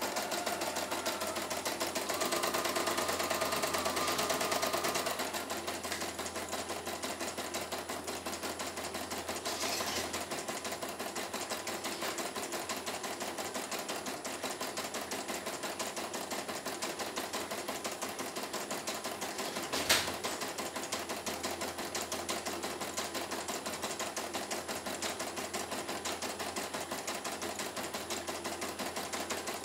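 CNY E900 computerised embroidery machine stitching steadily, a fast even clatter of the needle going up and down as the hoop steps the fabric, running smoothly with no thread breaks after its repair. A brief higher whine joins in about two seconds in, and there is a single sharp knock about twenty seconds in.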